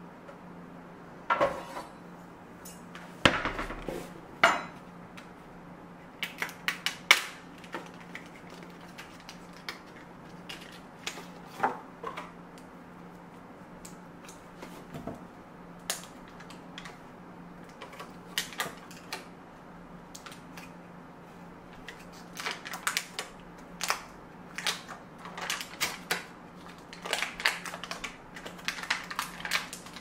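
Kitchen things set down and handled on a stone countertop, scattered knocks and clicks, then the foil wrapper of a block of butter crinkling and rustling as it is opened, denser toward the end. A faint steady low hum runs underneath.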